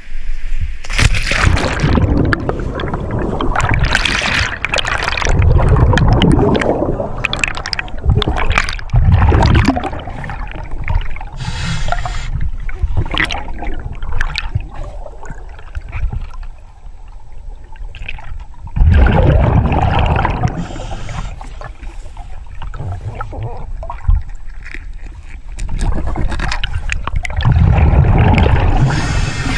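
River water gurgling and sloshing around a scuba diver, coming in irregular surges a few seconds apart.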